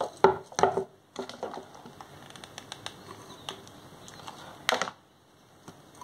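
Handling noise of braided trim being pressed and wrapped around a glass jug: a few short bursts of rustling and scraping, two at the start and one near the end, with scattered small clicks between.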